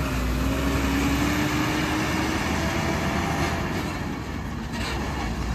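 Vehicle engine and road traffic noise: a steady rumble, with a faint engine tone rising slowly in pitch over the first two seconds.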